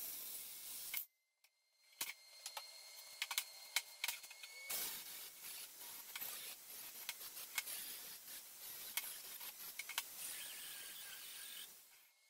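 A cordless metal-cutting saw runs through a steel tube and cuts off suddenly about a second in. It is followed by sharp metal clinks, knocks and scraping as the cut steel pieces are handled on a steel table.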